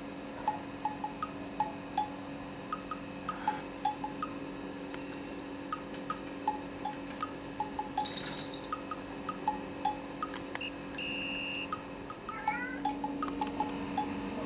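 Background music: a light tune of short, plinking, bell-like notes.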